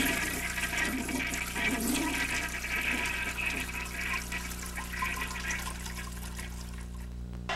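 Rushing water noise, slowly growing quieter, over a steady low electrical hum.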